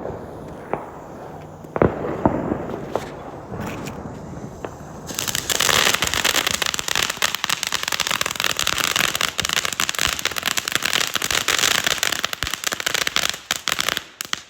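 Fireworks: a few separate bangs, then from about five seconds in a long, dense run of rapid crackling pops that stops shortly before the end.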